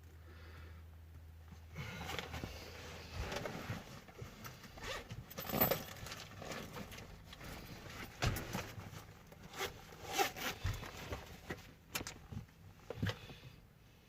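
Hands working a wire and its crimp terminals: irregular scraping and rustling with several sharp clicks, as the terminals are fitted to the cable for a car USB charging socket.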